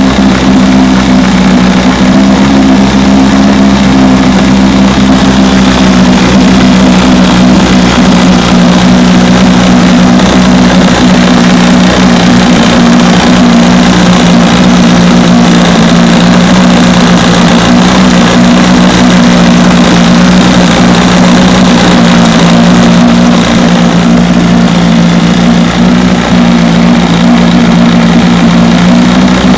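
1973 Johnson 25 hp two-cylinder two-stroke outboard motor running loudly at a steady speed, its ignition points freshly cleaned to cure a misfire on the bottom cylinder.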